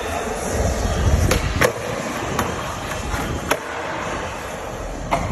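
Skateboard wheels rolling on smooth concrete, the rumble easing off about a second and a half in. Five or so sharp clacks of the board come at uneven intervals.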